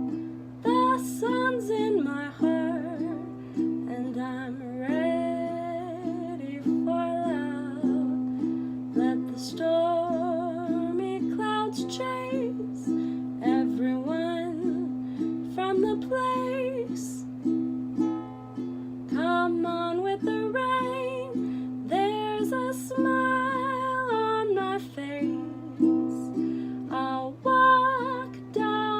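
Solo singing with vibrato, accompanied by a strummed stringed instrument.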